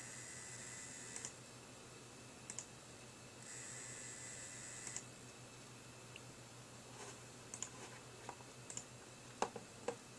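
Coil whine from an XFX Pro 750W power supply: a high-pitched electrical buzz that comes and goes with the computer's load. It sounds for about the first second, stops, and returns from about three and a half to five seconds in. Sharp clicks fall between the buzzes, with a cluster of them near the end. This coil whine is a fault of the unit, not of its fan.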